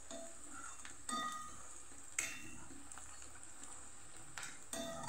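Chopped green onions frying in oil in a steel kadai, sizzling faintly as they soften. A metal spoon stirs them, scraping and knocking against the pan four times.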